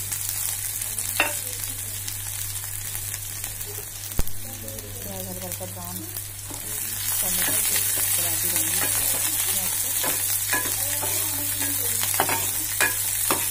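Chopped onions sizzling as they fry in hot oil with cumin in a pan, the sizzle growing louder about halfway through. A steel spoon stirs them, clicking against the pan several times near the end, with one sharp knock about four seconds in.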